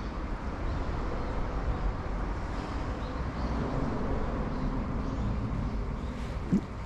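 Steady low rumble of road traffic crossing the concrete bridge overhead, with one brief sharp knock near the end.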